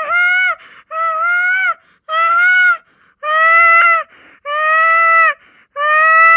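A child's voice imitating a peacock's call: a run of about six loud, high, drawn-out cries, each under a second long with a steady, slightly rising pitch, about one a second.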